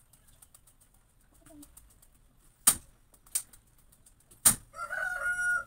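Kitchen utensils clacking sharply three times, a second or so apart, amid faint ticking, followed near the end by a short, steady pitched call.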